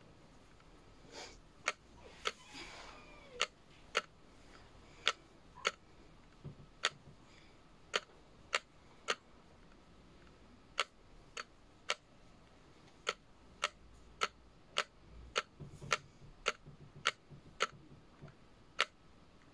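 A series of sharp clicks or taps at uneven intervals, settling to about two a second in the second half, with a brief scratchy rustle about two and a half seconds in.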